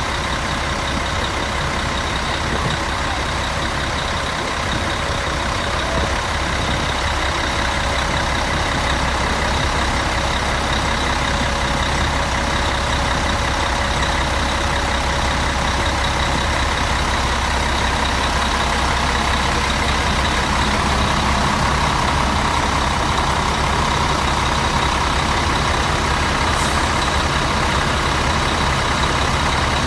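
Mercedes-Benz bus's diesel engine idling steadily, heard at the rear exhaust outlets, with a steady whine over the low engine rumble.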